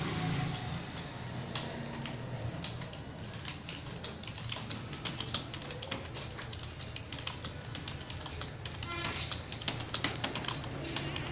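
Computer keyboard keys clicking in an irregular stream of keystrokes during touch typing, over a steady low hum.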